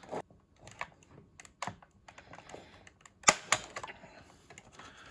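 Metal scraper and butter knife prying at the edge of a plastic cyclotron lid: scattered small clicks and scrapes, then a sharp crack a little over three seconds in with a second close behind, as a glued plastic peg snaps.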